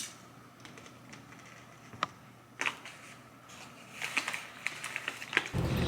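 Scattered light clicks and knocks, more frequent near the end, then a steady low rumble that starts abruptly about five and a half seconds in.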